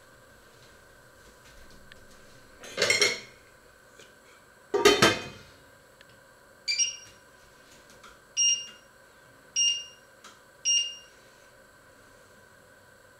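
Two metal clatters as a stainless steel lid is set on a pot, then four short electronic beeps about a second apart, typical of a glass-top hob's touch controls being pressed.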